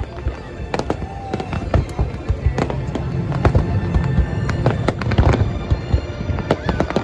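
A fireworks display: a dense, irregular stream of shell bursts and crackles, with a few short whistles, over background music with a steady bass.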